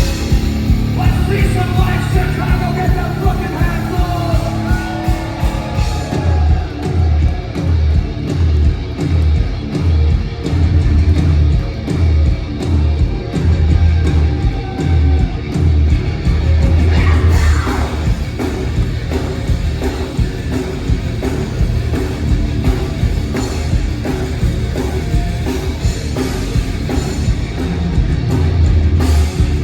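A live rock band playing loudly in a concert hall: distorted electric guitars, drums and bass, with sung and shouted vocals. From about six seconds in, heavy bass and kick-drum hits come in a driving, repeated pattern.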